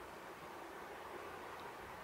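Faint, steady background hiss of the night storm ambience, with no distinct events.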